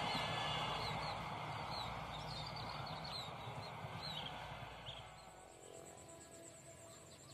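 A passing train's running noise fading as it moves away, with short bird chirps over it. After about five seconds only a quieter background is left, with a high, fast-pulsing trill.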